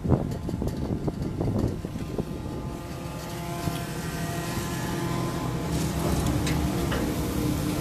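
Detachable chairlift top-station machinery: a clunk at the start as the chair comes into the station, then a steady whirring hum with a few held tones from the station's conveyor wheels and drive, growing louder as the chair runs through.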